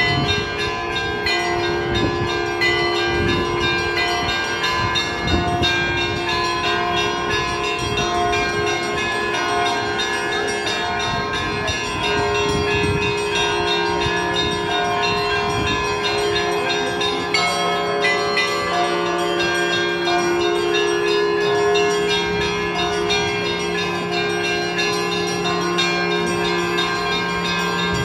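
Russian Orthodox church bells rung in a continuous melodic peal: many bells struck in quick succession, their tones ringing on and overlapping. A deeper bell's hum comes in more strongly about halfway through.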